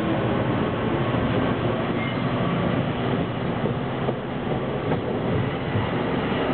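Bilevel passenger coaches of a departing commuter train rolling past at close range: a steady rumble of wheels on rail that carries on throughout.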